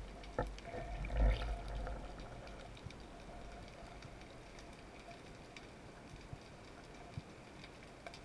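Underwater sound heard through a camera housing: a low muffled rumble and a couple of knocks in the first two seconds, then faint hiss with scattered sharp clicks and crackles.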